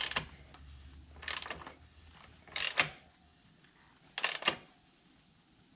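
Ratchet wrench clicking as the motorcycle's rear axle nut is tightened, in four short strokes about every second and a half.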